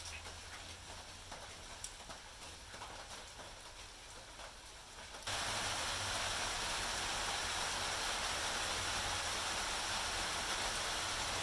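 Faint ambient noise with a few light scattered clicks, then an abrupt switch about five seconds in to a louder, steady, even hiss.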